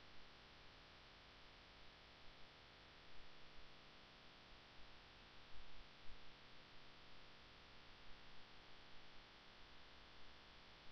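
Near silence: a faint, steady hiss and hum of the broadcast feed, with a few faint low bumps.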